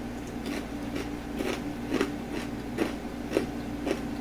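A person chewing crispy fried kangkong (water spinach) chips with their mouth, a run of short crunches about two a second.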